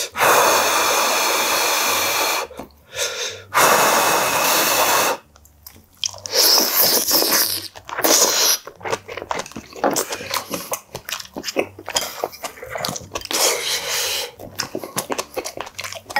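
Close, loud slurping of soup from a wooden bowl: two long slurps in the first five seconds, then shorter hissing sips, then many small wet clicks of chewing.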